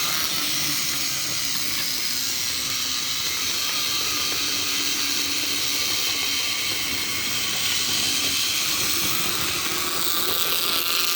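Battery-powered Plarail D51 toy steam locomotive running, its small electric motor and plastic gears giving a steady, even whirring hiss.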